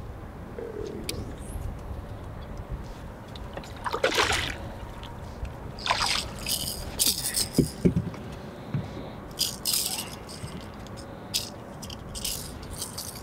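A series of short water splashes as a hooked bass thrashes at the surface while it is reeled in and lifted into the boat.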